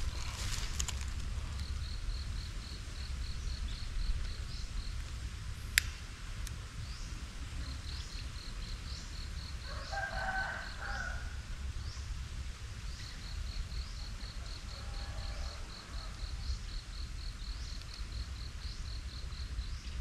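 Outdoor ambience: an insect keeps repeating a high, evenly pulsed chirp, about six pulses a second, in runs of a few seconds, over a steady low rumble. A short call comes about ten seconds in, and a single sharp click about six seconds in.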